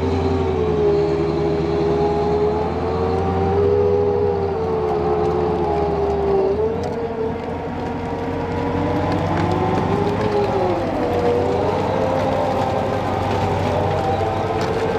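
M270 tracked rocket launcher driving: engine and running gear running steadily, with a whine whose pitch wavers and dips about six and a half seconds in and again about ten seconds in.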